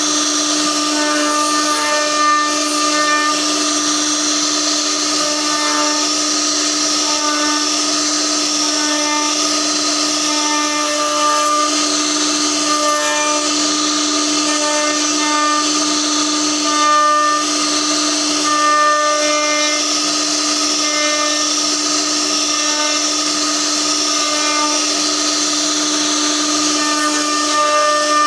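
CNC router spindle running with a steady high whine as its bit carves a relief into a wooden door panel, over a hiss, with higher tones that come and go as it cuts.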